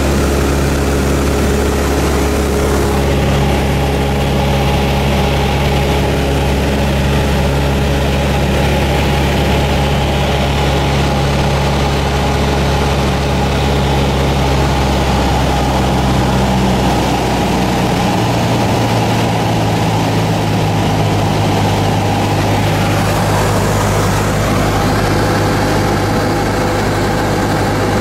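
Cessna 172's piston engine and propeller droning steadily in cruise, heard inside the cabin. About two-thirds of the way through, the engine note drops to a lower pitch.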